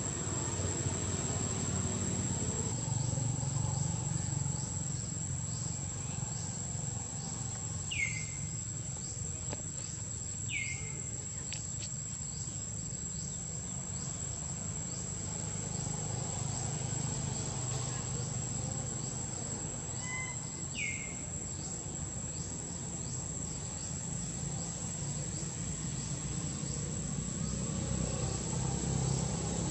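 Insects droning on one steady high pitch over a low background rumble, with three short falling chirps, about eight, ten and twenty-one seconds in.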